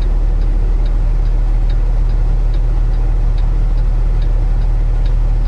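A semi truck's diesel engine running steadily, heard inside the cab as a deep hum, with a light, even ticking about two to three times a second.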